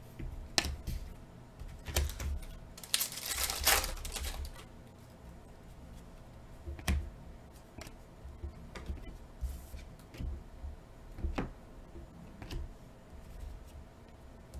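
Trading cards being handled and flipped through by hand: scattered light clicks and snaps of glossy card stock, with a brief burst of crinkling plastic wrapping about three seconds in.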